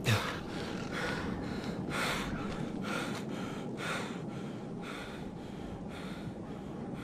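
A person breathing heavily close to the microphone, a breath roughly every second. A short low bump sounds right at the start.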